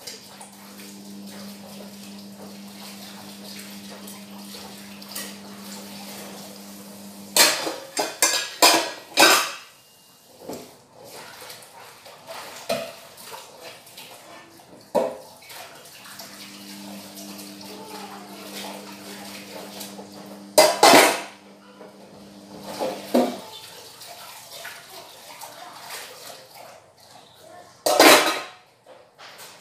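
Dishwashing at a kitchen sink: dishes, cutlery and metal pots clatter, with loud clangs as pots are set down, the last about two seconds before the end. A steady low hum sounds for several seconds at the start and again in the middle.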